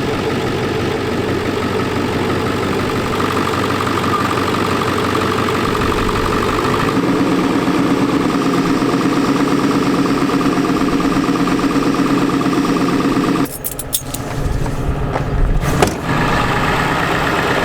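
Ford 7.3 Powerstroke diesel engine running steadily, its note changing about seven seconds in. The sound breaks off suddenly near the end, a couple of knocks follow, and then it resumes.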